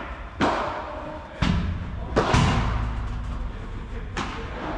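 Padel rally: rackets striking the ball and the ball bouncing, about four sharp pops a second or so apart, each ringing on in the hall.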